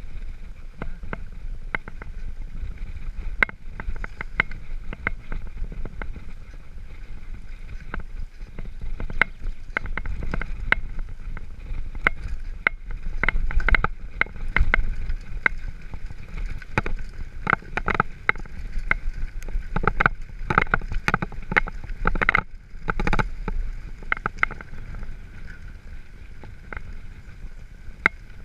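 Mountain bike riding downhill on a rough dirt and stony trail: a steady low rumble of wind and tyres on the ground, with frequent sharp clacks and rattles as the bike jolts over stones, busiest in the middle stretch.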